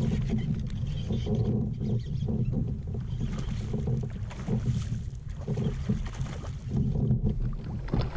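Wind buffeting the microphone with a steady low rumble, over water sounds around a kayak, with light clicks and rattles as a fishing reel is cranked during a fight with a fish.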